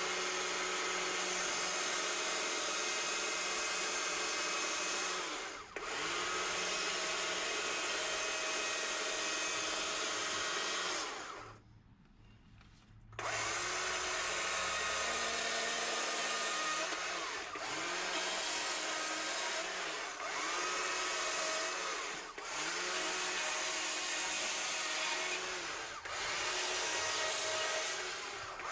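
Battery-powered Stihl chainsaw cutting into a wooden carving block, running with a steady motor whine. About twelve seconds in it stops for over a second. After that the trigger is let off and squeezed again every two to three seconds, so the pitch drops and winds back up each time.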